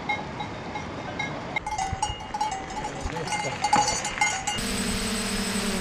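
Cowbells on grazing cattle clanking irregularly. About four and a half seconds in they cut off and a steady droning hum takes over.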